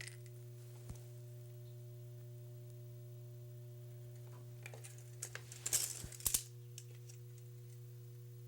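Light metallic clicks and clinks from handling a metal door sweep and tools. They come in a cluster about five to six and a half seconds in, over a steady electrical hum.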